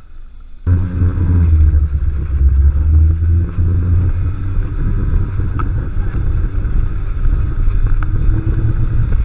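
Small motor scooter's engine running at riding speed, with heavy wind rush on the microphone; the sound cuts in suddenly under a second in and then holds steady.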